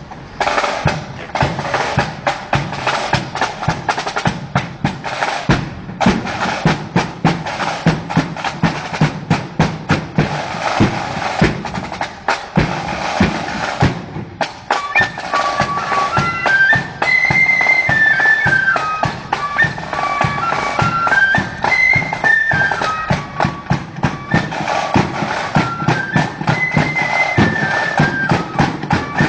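Marching flute band on parade: for the first half only the drums play, in a steady march beat. About halfway through, after a short break, the flutes come in with a tune over the drums.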